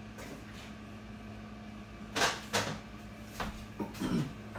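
Refrigerator door being opened and shut as a carton is put away: two sharp knocks about two seconds in, then a few lighter knocks and clicks.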